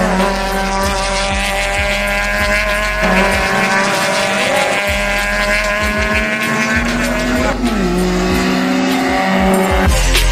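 Racing car engine held at high, steady revs with tyre squeal, its pitch stepping up about three seconds in and dipping briefly near the end.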